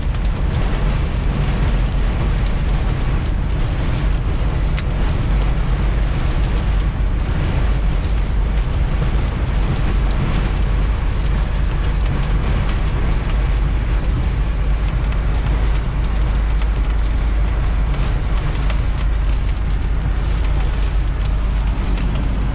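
Car driving in the rain, heard from inside the cabin: a steady low rumble of road and wind noise with rain on the car.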